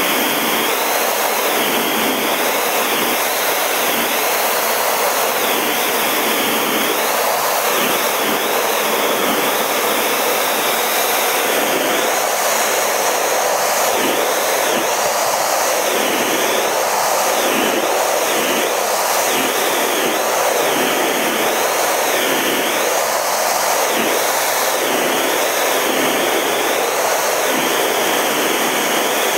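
Steady rush of a CT-114 Tutor jet's single turbojet engine and airflow, heard inside the cockpit, with a high whine that wavers up and down over and over.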